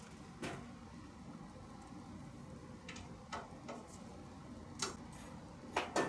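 Scattered sharp clicks and knocks from hands, tools and shoes on the casing and frame of an LG Multi V air-conditioner outdoor unit, about seven in all, the loudest two close together near the end, over a steady low background noise.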